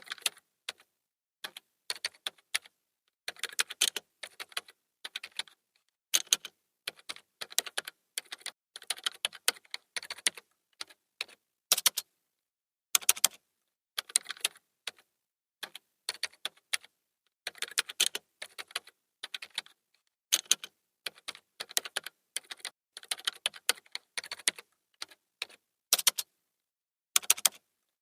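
Computer keyboard typing: irregular runs of quick key clicks with short pauses between them, now and then a louder keystroke.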